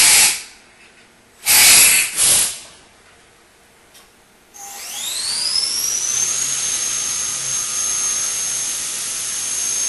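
Short hissing blasts in the first couple of seconds, then a CNC machining centre's spindle spins up for spot drilling. About 4.5 s in, a whine rises and settles into a steady high tone, over the hiss of flood coolant spraying onto the part.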